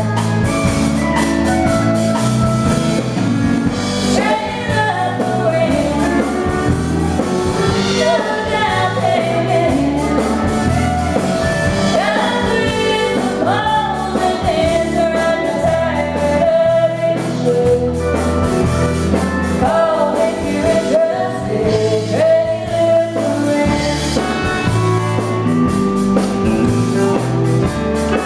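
Live band music: a woman singing lead into a microphone over electric bass, electric guitar and drums.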